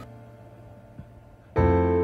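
Background piano music: a short quiet lull, then a piano chord comes in near the end.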